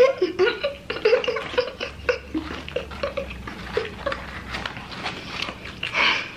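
A woman's short wordless vocal sounds, a pitched glide and then a string of brief hums or chuckles, while eating, with a short burst of noise near the end.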